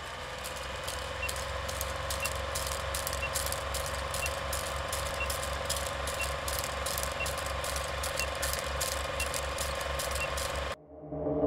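Old film projector running with a rapid rhythmic clatter, a steady hum and scattered crackling clicks, and a short high beep about once a second as the leader counts down. It all cuts off suddenly near the end.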